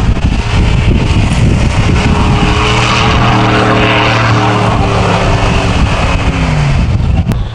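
Pickup truck engine revving hard while its tyres spin and throw snow during donuts. The revs drop off about six and a half seconds in. Heavy wind rumble on the microphone throughout.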